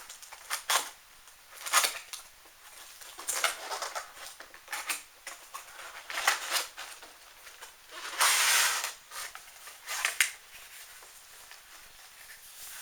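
Cardboard kit box and its packaging being opened and handled: a run of short rustles, scrapes and knocks, with a longer rustle of about a second near two-thirds of the way through.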